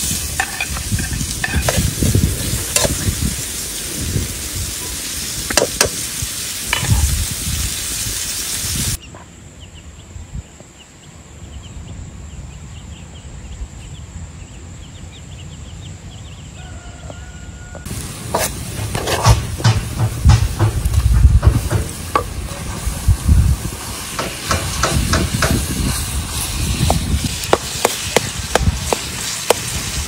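Food sizzling in a frying pan over a wood fire, with a spoon stirring and scraping in sharp clicks. About nine seconds in it drops to a quieter stretch of faint short chick peeps. Near the middle the frying and stirring return, now onions and minced meat in the pan.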